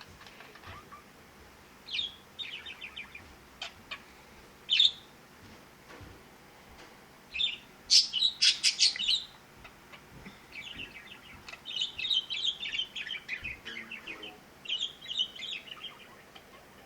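Budgerigars chirping and chattering in short, scattered bursts of high trills, the loudest burst about eight seconds in.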